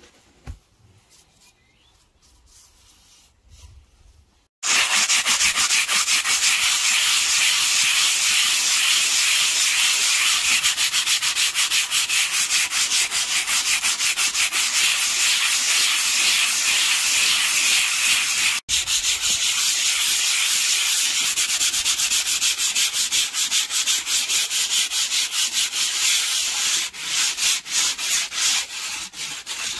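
Sandpaper on a hand block scrubbing back and forth over the underside of a cured cast concrete sink, flattening its bumpy surface. After a few quiet seconds it starts about four and a half seconds in as fast, even scratching strokes, breaks for an instant around the middle, and slows to separate strokes near the end.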